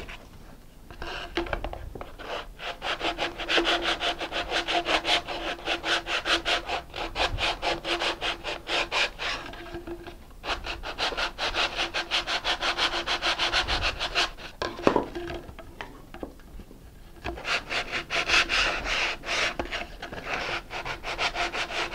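Sandpaper on a sanding stick rubbing back and forth inside the end of a paper rocket body tube, smoothing the inner wall so the transition slides in. The quick, even strokes come about four a second, with a short break about ten seconds in and a quieter lull a few seconds later.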